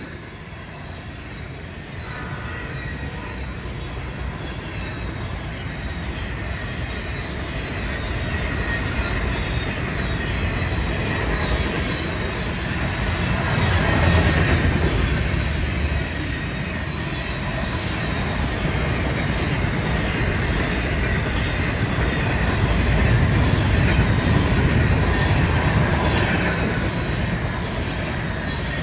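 Freight train cars, covered hoppers and tank cars, rolling past at about 60 mph: a continuous rumble and rattle of wheels on the rails with a faint thin ringing above it. It slowly gets louder, swelling about halfway through and again shortly before the end.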